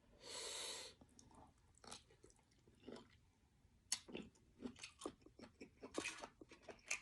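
A person chewing a mouthful of seafood-boil food: soft, irregular wet mouth clicks and smacks. There is a short breathy hiss just before the chewing starts.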